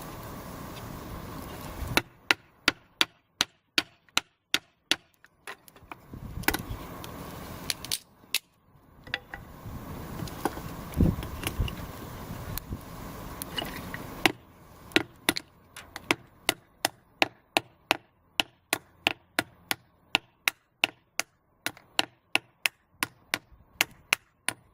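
Wooden baton striking the spine of a folding multitool's knife blade to split kindling: a quick, steady run of sharp wooden knocks, about three a second. The knocks come in two long runs, with a stretch of irregular handling and splitting noise between them.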